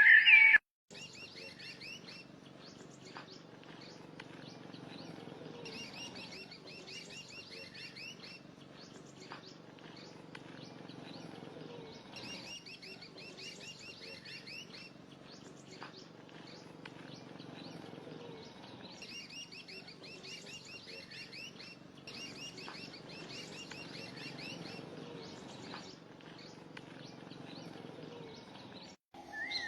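Small birds chirping in repeated bouts of rapid, high chirps every few seconds, over faint low background noise.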